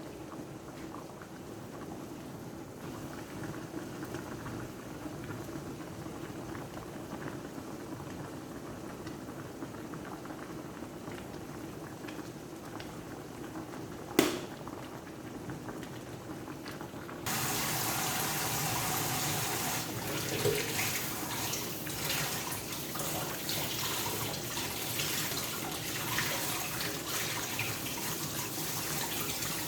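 A pot of adobo simmering with a soft steady bubbling, broken by one sharp click about 14 seconds in. About 17 seconds in a kitchen tap is turned on and water runs steadily into the sink.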